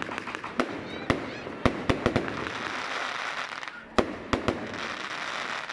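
Riakeo firework batteries firing: a run of sharp bangs about a second in and another two or three near four seconds in, with stretches of dense crackling from crackle stars between them.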